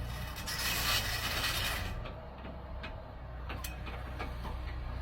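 Excavator's diesel engine running steadily, with a rushing noise for the first two seconds and scattered sharp clanks from the digging.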